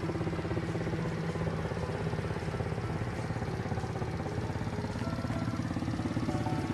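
Intrend 125cc four-stroke automatic ATV engine idling steadily.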